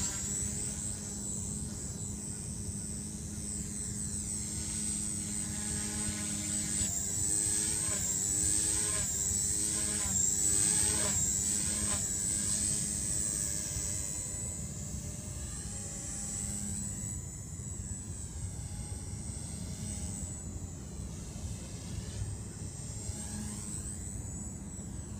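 Align T-Rex 150 micro RC helicopter flying: its electric motor and rotor give a steady high whine over a lower hum. The whine wavers in pitch as it manoeuvres, most through the first half.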